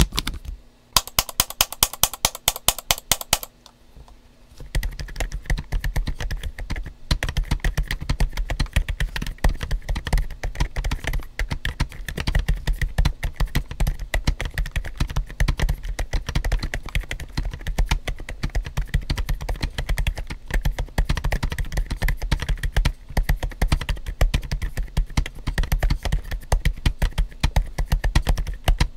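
Mechanical keyboard typing: after a short fast burst and a pause of about a second, steady continuous typing on a GAS67 built for a whisper-quiet sound. The build has silent Gazzew Bobagum switches, Timeless Violet PBT keycaps with o-rings, cork tiles and an IXPE sheet.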